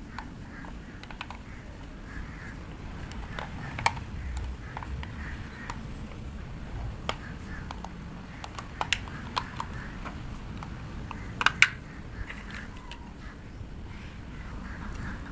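Irregular sharp clicks and taps of small plastic parts and tools being handled during a multimeter repair, the loudest a quick pair about eleven and a half seconds in, over a steady low background rumble.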